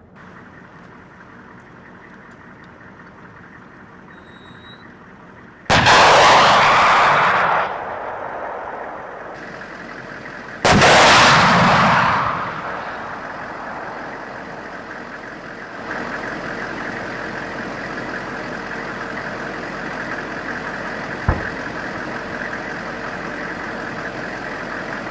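Two TOW anti-tank missile shots about five seconds apart, each a sudden loud blast followed by a couple of seconds of rushing roar that dies away. A steady engine noise runs underneath, with one short sharp crack near the end.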